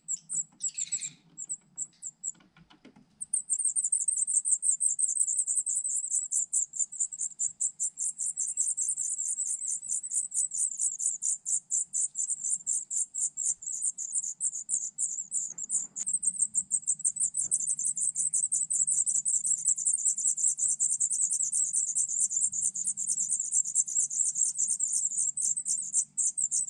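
Black redstart nestlings begging at the nest while a parent feeds them: a rapid, very high-pitched string of pulsed calls that breaks off briefly about two seconds in, then runs on without a pause.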